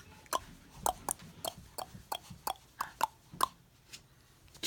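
A quick series of short mouth clicks, like tongue clicks or lip smacks, about three a second, stopping about three and a half seconds in.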